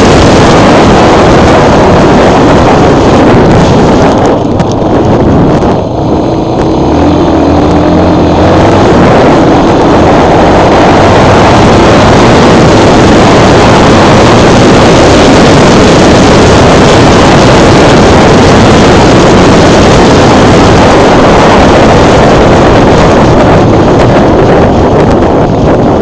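Dirt bike engines running at speed, buried under heavy wind buffeting on the microphone. The sound is very loud throughout.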